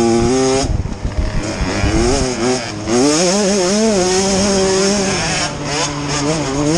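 Small off-road motorcycle engines revving up and down as the dirt bikes race past. The engine note drops away about a second in, with low thumping noise, and picks up again about three seconds in.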